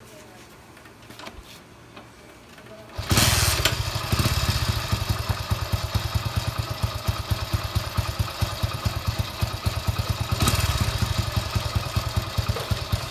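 Hero Honda Splendor's single-cylinder four-stroke engine coming in suddenly about three seconds in and then idling with a rapid, even beat, freshly filled with semi-synthetic engine oil.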